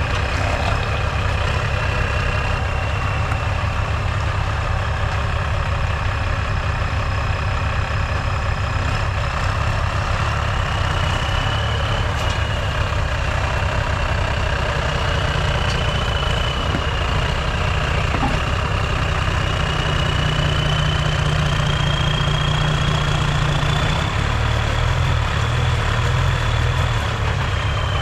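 Cummins diesel engine running steadily at low revs, with a thin high whine above it that drifts slowly up and down in pitch.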